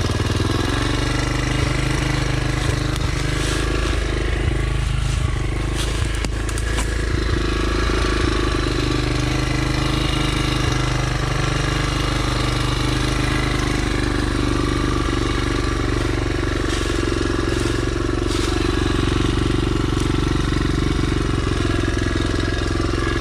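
Dirt bike engine running, its pitch drifting up and down with the throttle, with a few short clicks about six seconds in.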